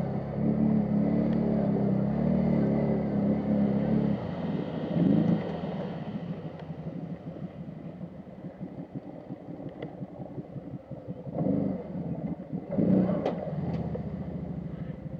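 ATV engine pulling under throttle for about four seconds, then dropping back to a low, pulsing idle, with two short throttle blips near the end.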